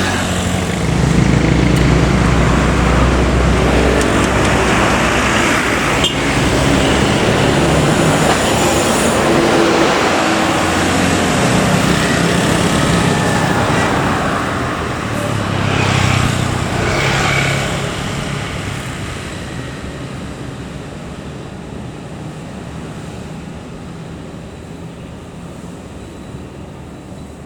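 Heavy diesel road vehicle running loudly with dense road and traffic noise. The sound stays loud for most of the time, then fades steadily away over the last ten seconds.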